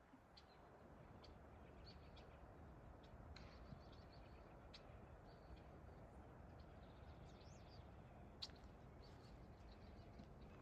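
Faint, scattered bird chirps over a quiet, low background hiss.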